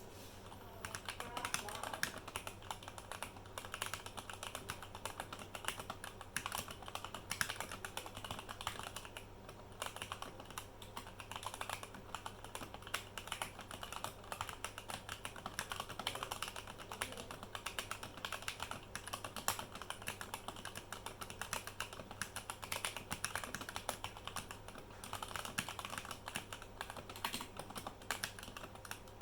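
Typing on a Vortex VX9 mechanical keyboard with unlubed Gateron Red linear switches: a fast, steady stream of keystroke clacks, with brief lulls about a third of the way in and again near the end.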